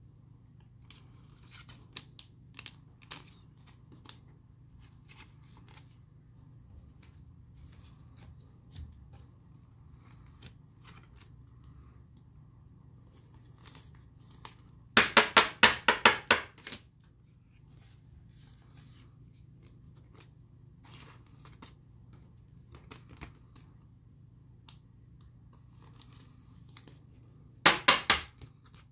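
Trading cards being handled and slid into clear plastic sleeves: soft rustling and small clicks, with a louder run of about eight quick scratchy plastic strokes about halfway through and a shorter burst near the end.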